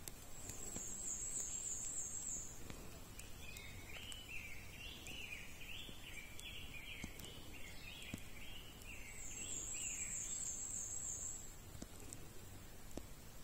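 Woodland songbirds singing. A very high, thin trill comes twice, each lasting about two seconds, and between them a second bird gives a long run of quick, lower notes, over a steady low background rush.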